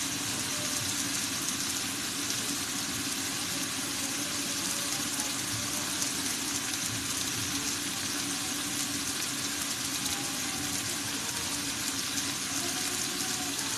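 Marinated beef strips sizzling steadily in a frying pan over a gas flame while being stirred and turned with a spatula; the marinade's water has cooked off and the meat is being dry-fried (bhuna).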